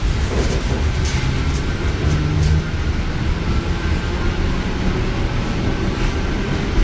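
Ride noise inside a Vagónka Tatra ČD Class 475 electric multiple unit on the move: a steady low rumble from the wheels and running gear, with a few short sharp clicks in the first two and a half seconds.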